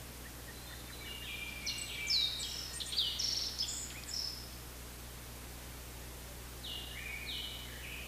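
A songbird singing a fast phrase of varied high notes, some sweeping down in pitch, starting about a second in and lasting some three seconds, then a second phrase near the end, over steady low background noise.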